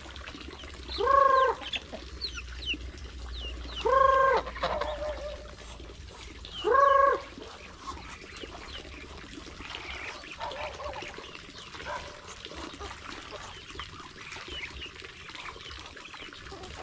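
Free-range chickens and roosters clucking and chirping around the feeder, with three loud honks from the white waterfowl about three seconds apart in the first seven seconds.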